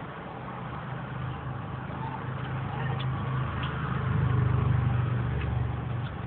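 A car engine running with a low, steady hum, heard from inside a parked car's cabin. It grows louder about four seconds in and eases off near the end.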